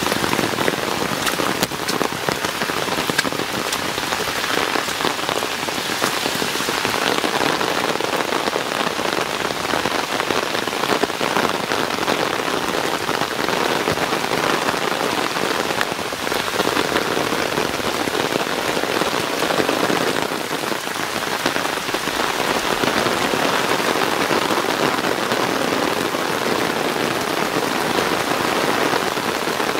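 Heavy monsoon rain falling steadily on leaves and rock: a dense, unbroken hiss.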